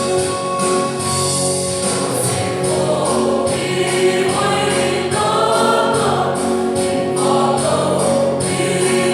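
A choir singing a gospel song over instrumental backing with a steady percussion beat. Held chords carry the first few seconds; the voices come in about three seconds in.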